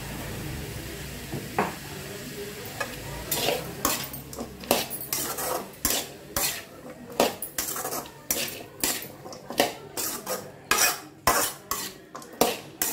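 Metal spatula scraping and knocking against an aluminium kadai as diced chayote is stirred while it fries. After a steady first three seconds, the strokes come about twice a second.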